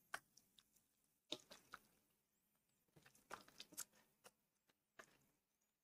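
Faint, scattered wet squelches and clicks of a bare hand kneading a yogurt-and-spice marinade into raw chicken pieces in a steel bowl.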